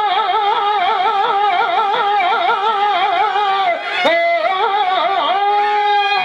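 A singer drawing out a verse melody in Telugu stage-drama style: long held notes with fast, wavering ornaments. One sharp knock about four seconds in.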